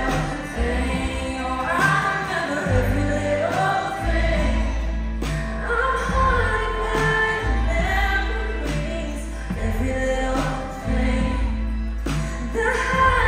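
Live country band playing a slow song, with a woman singing lead over low bass notes that change every second or two.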